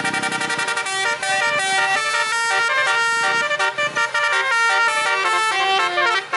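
Bus telolet horn, a set of musical air horns playing a tune of quick, stepped notes with several pitches sounding together.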